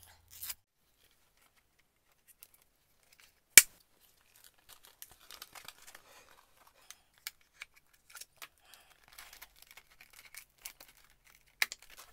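A sheet of sandpaper, its back reinforced with plastic tape, being handled and fitted onto an electric finishing sander: intermittent crinkling and rustling of stiff paper with small clicks, and one sharp snap about three and a half seconds in.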